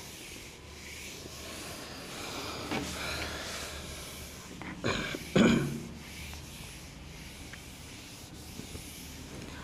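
Handheld whiteboard duster rubbing across a whiteboard, wiping off marker writing in repeated strokes, with a brief louder sound about five seconds in.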